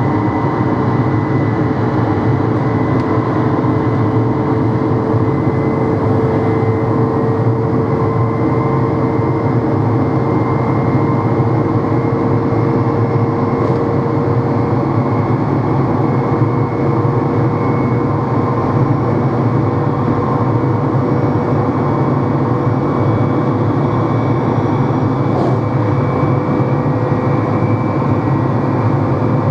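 NMBS/SNCB AM96 multiple unit running: a steady, loud motor drone with a deep hum and a whining tone that rises slowly in pitch throughout, as the train gradually gathers speed.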